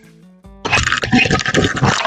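Background music with steady tones, then about half a second in a loud, rough rushing noise cuts in and carries on.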